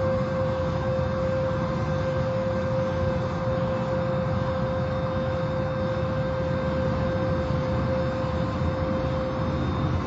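Car wash machinery running: a steady rushing noise with a constant whine held on one pitch.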